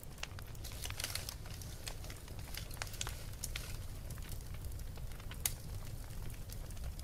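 Wood fire crackling in a fireplace: irregular sharp pops and snaps over a low steady rumble, with one louder pop about five and a half seconds in.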